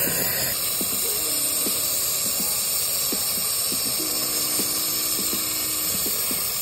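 Steady hiss of a brazing torch flame heating a copper line joint during brazing.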